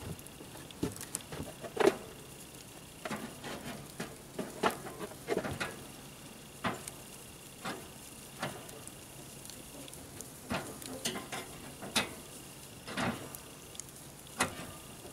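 Irregular clicks, taps and scrapes of a metal fork and a plastic container against the smoker's cooking grate as beef ribs are laid on it, the loudest knock about two seconds in.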